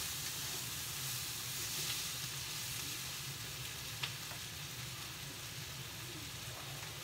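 Sweet and sour pork ingredients sizzling steadily in a frying pan as they are stir-fried, with one light tap about four seconds in.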